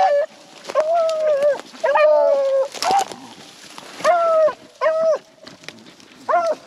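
Beagles baying in about five drawn-out, howling calls, the voice of hounds working a rabbit's scent. A short crackle of brush about three seconds in.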